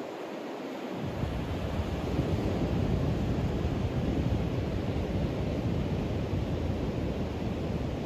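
Ocean surf breaking and washing in over a sandy beach, a steady wash of noise. About a second in, a deep low rumble joins it and the sound grows louder.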